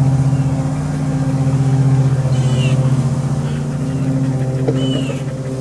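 Steady drone of a small gasoline engine running at constant speed in the background, likely a neighbour's powered garden machine, with a few short high chirps about two and a half seconds in and again near the end.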